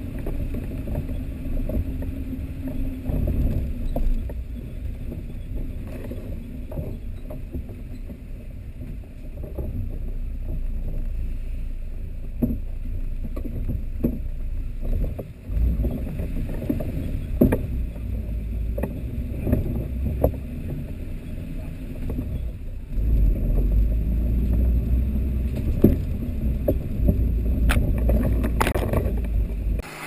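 Old Jeep driving slowly down a rutted, muddy trail: a muffled low rumble of the engine and drivetrain, with scattered knocks and rattles as the body jolts over the ruts. The rumble gets heavier for several seconds near the end.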